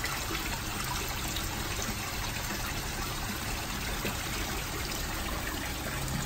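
A stream of well water pumped straight from a borehole pours from a pipe and splashes steadily onto the surface of a koi pond as it fills.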